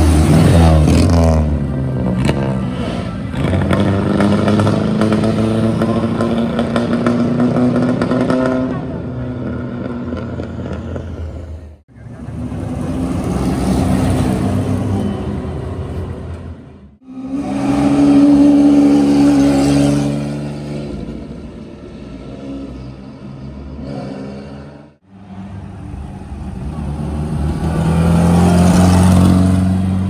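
Vintage cars' engines revving and accelerating away, one car after another, in several short clips that break off abruptly about twelve, seventeen and twenty-five seconds in.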